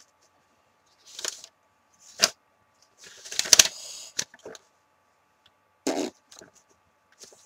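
Paper rustling as a stuffed diary-calendar is handled and its pages turned: short rustles, a sharp tap about two seconds in, and a longer, louder rustle around three to four seconds.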